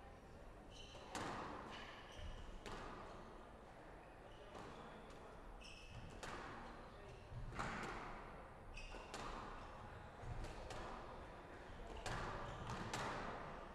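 Squash rally: sharp cracks of racquet strikes and the ball hitting the court walls about every one and a half seconds, with short high squeaks of shoes on the wooden court floor between them.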